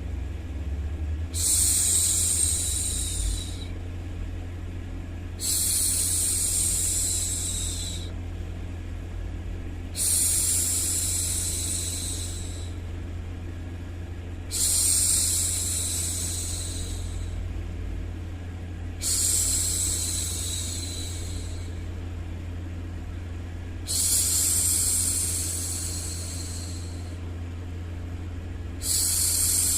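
A woman's voice shushing 'shhh' to soothe a baby, seven long hushes of about two to three seconds each, evenly spaced about every four and a half seconds. Under them runs a steady low white-noise hum.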